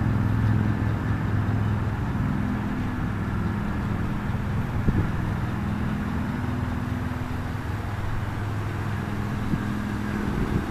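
Chevrolet Avalanche pickup's engine running steadily with a low, even hum. There is a single sharp click about five seconds in.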